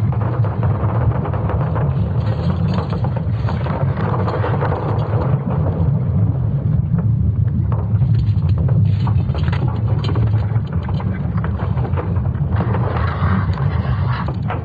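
Earth's magnetic field made audible from satellite recordings: a dense, steady low rumble with many scattered crackles and creaks.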